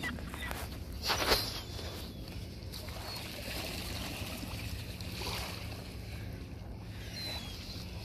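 A flock of gulls taking off from shallow water, wings flapping and feet splashing, with a loud, brief burst about a second in, over a steady low rumble.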